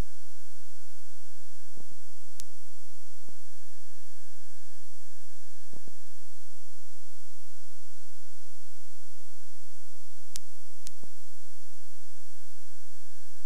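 Steady electronic whine and hum with hiss, the background noise of a 1990s police dash-camera videotape recording, with three short clicks, one a couple of seconds in and two close together near the end.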